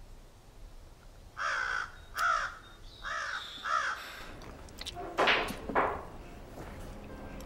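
Crow cawing four times in quick succession, each a harsh, arched call, followed by two louder, harsher sounds about five seconds in.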